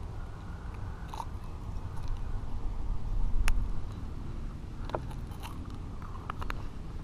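Low rumbling noise on the microphone with a few sharp clicks, typical of wind and handling noise on a hand-held camera. The rumble swells for a couple of seconds in the middle.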